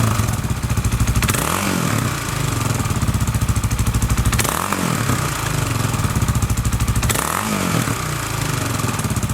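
Suzuki DR650 single-cylinder four-stroke motorcycle engine running at idle, freshly rebuilt with a honed cylinder and oversize piston. It is briefly revved three times, about three seconds apart, each blip rising and falling back to idle.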